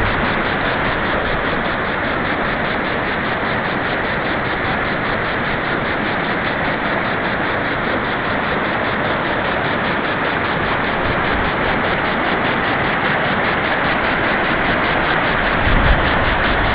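Shallow mountain river rushing over boulders and rocks in a steady, even wash of water noise, with a little low rumble added near the end.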